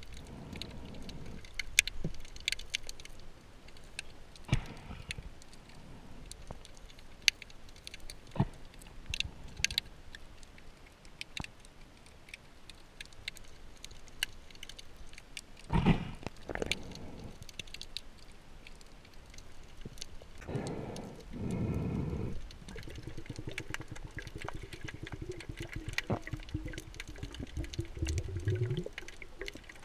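Muffled underwater sound through a waterproof camera housing: scattered sharp clicks and knocks, a louder rush of noise about two thirds of the way in, and a low buzzing hum over the last few seconds that rises in pitch near the end.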